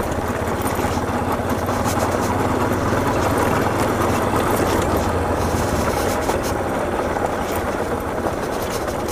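Motorcycle engine running steadily at low speed over a rocky dirt road, under a constant rushing noise and scattered small clicks and rattles from loose stones.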